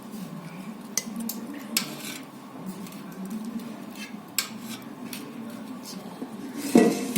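Metal spoon and utensils knocking against a cooking pot: a few scattered clinks, then a louder clatter near the end.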